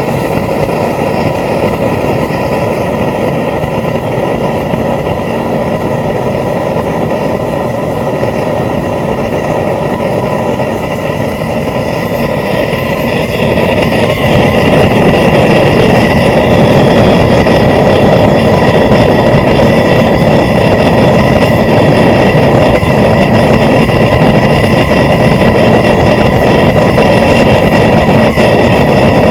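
Home-built propane forge burner running at about 5 psi: a loud, steady rush of gas and flame, growing louder about halfway through.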